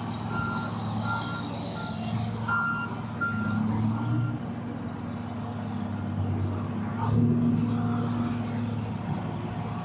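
A reversing alarm beeping, a single high tone about twice a second, which stops about four seconds in, over a heavy engine running steadily throughout.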